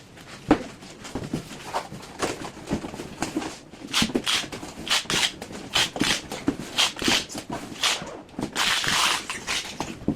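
Paintless dent repair rods and their packing being handled: irregular knocks and clicks, with a longer rustling scrape about nine seconds in.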